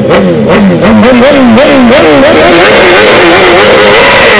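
BMW S1000RR's inline-four engine revved on the spot in a run of quick throttle blips, each rising and falling in pitch, then held at high revs for about a second near the end.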